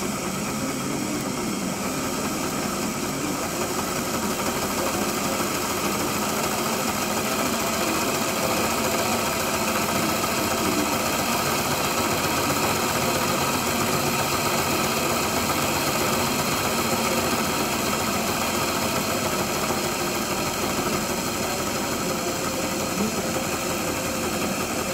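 Model GWR 5600 class tank locomotive running on a rolling road: its motor and gears whir with a steady whine as the driving wheels spin on the rollers, getting a little louder about eight seconds in.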